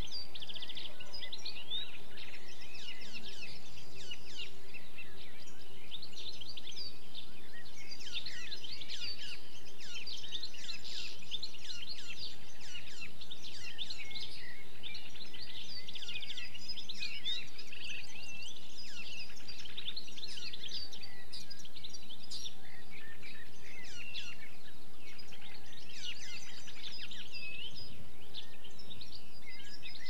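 European goldfinch singing: a rapid, high twittering of many short notes in long bursts with brief pauses, among other birdsong.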